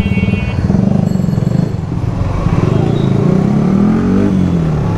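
Motorcycle engine pulling away from a standstill, the revs climbing from about two seconds in and dropping sharply at a gear change just past four seconds.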